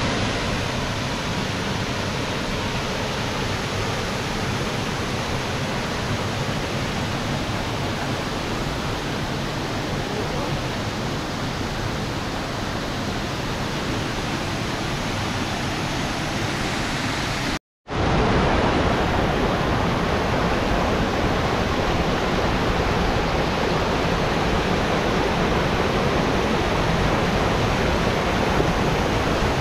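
Waterfall's rushing water, a steady, even roar with no break in it. It cuts off briefly about two-thirds of the way in and comes back a little louder.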